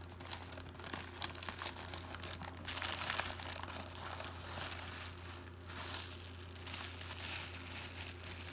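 Plastic bag crinkling as jewelry is picked through by hand: irregular rustles and small clicks over a low steady hum.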